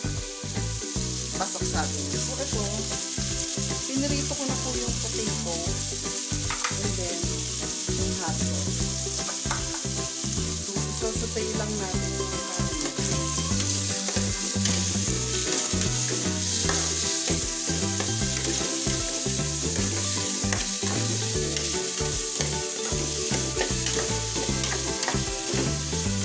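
Meat pieces sizzling as they fry in an aluminium pot, with a utensil stirring and scraping them against the pot now and then.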